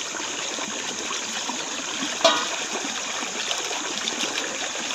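Shallow running water flowing steadily past, with a single short knock about two seconds in.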